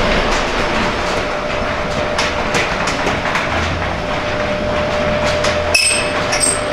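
Nissan Skyline DR30's FJ20ET turbocharged 2.0-litre four-cylinder engine running, a steady mechanical noise with irregular ticking through it.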